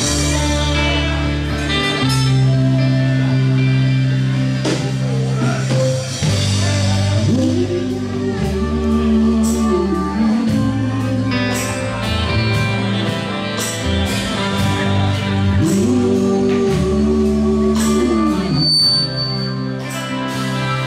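A live rock band playing: electric guitars, bass guitar, drums and saxophone over a steady bass line. A lead melody holds long, bending notes twice, about eight and sixteen seconds in.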